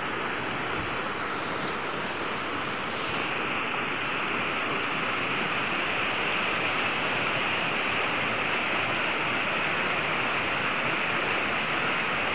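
Shallow rocky river rushing over stones and a low ledge: a steady rush of water that grows a little louder about three seconds in.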